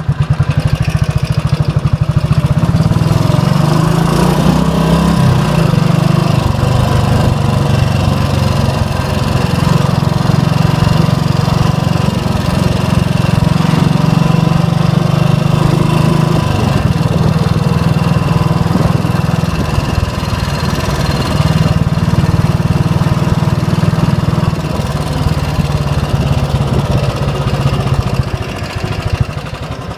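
Royal Enfield Bullet 500's single-cylinder four-stroke engine running as the bike is ridden at low speed, its note rising and falling with the throttle. Near the end it eases off and drops back toward idle.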